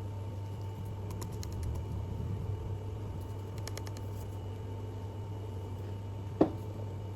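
Steady low hum of a small room, with two brief runs of light clicks and one sharp knock near the end.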